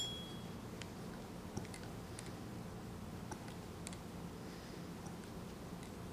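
Faint clicks and small metallic taps from hands handling a small brass model gasoline engine whose valve gear is moved by hand, with a brief high metallic ring right at the start.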